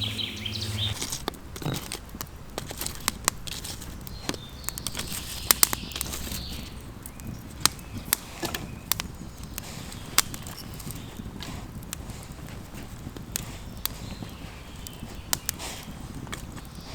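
Irregular sharp crackles and clicks over a steady low background, with short bird chirps a few times: about a second in, around five to six seconds in, and near the end.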